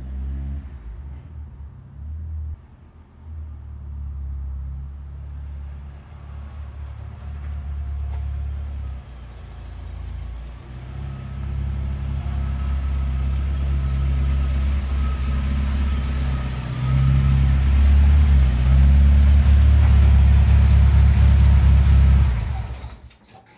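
A 1973 Datsun 510's carburetted four-cylinder engine running as the car drives up and pulls in, a low rumble growing louder as it nears, then switched off shortly before the end. The ignition is now run by a spark-only Speeduino ECU, which logged misfires and sync-loss errors on this drive.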